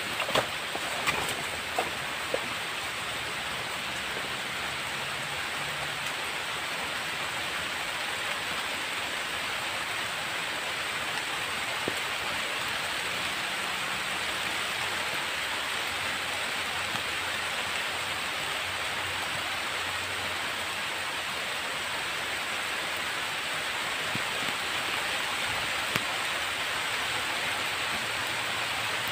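Steady heavy rain falling, with a few sharp ticks in the first couple of seconds and one more near the end.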